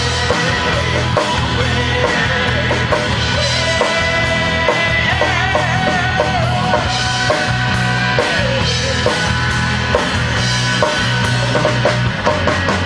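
Live rock band playing: electric guitar over drum kit and bass. A lead line bends in pitch through the middle, and there is a quick run of drum hits near the end.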